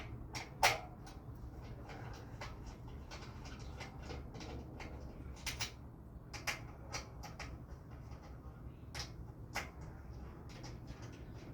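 Scattered clicks and light knocks of hand tools and metal parts, an Allen wrench working on the bicycle's handlebar clamp, over a steady low hum.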